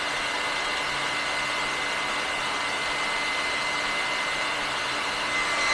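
Hair dryer running steadily on its 1400 W high setting, a constant rush of air with a steady high whine, as a load drawing about 1300 W from a portable power bank's inverter.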